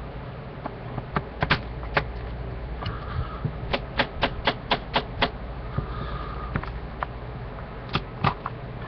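A can of Grizzly Wintergreen moist snuff being packed: sharp taps, a few scattered ones, then a quick even run of about seven at roughly four a second, then two more near the end.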